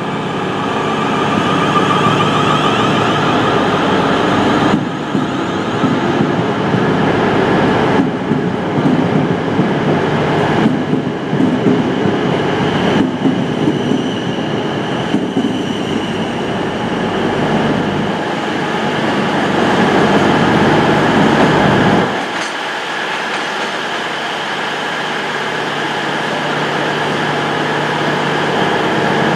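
South West Trains Class 444 Desiro electric multiple unit pulling out and accelerating past, with its electric traction whine mixed with wheel-on-rail running noise. About two thirds of the way through the sound cuts abruptly to a quieter, steadier hum.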